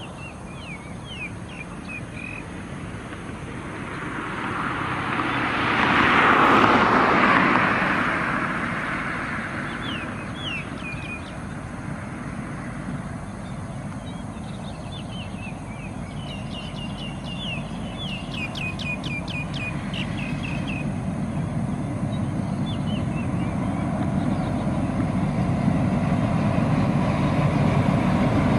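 A road vehicle passes close by, loudest about six seconds in, while small birds chirp on and off. From about twenty seconds in, the low rumble of an approaching diesel locomotive hauling a passenger train grows steadily louder.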